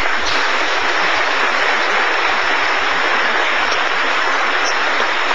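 An audience applauding steadily, a dense even clapping.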